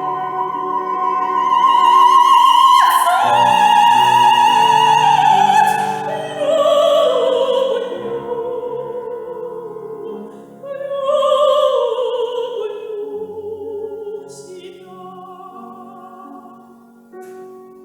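Operatic soprano singing with piano accompaniment: long held notes with wide vibrato in a phrase that steps downward, loudest in the first half and softening toward the end.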